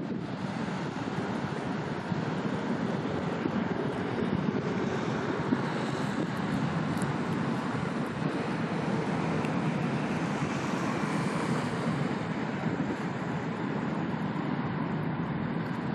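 Steady wind buffeting the microphone over the wash of water, with a low, even rumble underneath.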